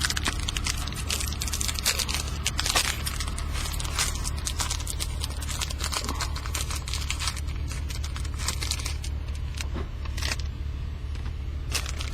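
A foil trading-card pack wrapper being torn open and crinkled, a dense run of rustles and crackles that thins out to a few scattered ones near the end, over a steady low hum.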